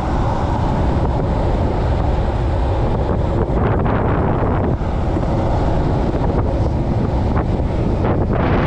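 Steady, loud wind rush buffeting the microphone of a rider moving downhill at about 23 mph.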